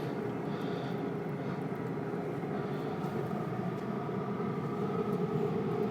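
Steady mechanical rumble with a faint hum, growing slightly louder near the end.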